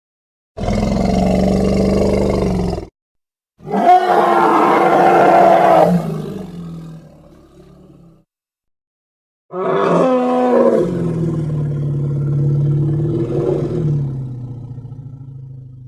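Medusaceratops dinosaur sound effects: three separate low roaring calls with short silences between them. The first two end abruptly, and the third is the longest, slowly fading away.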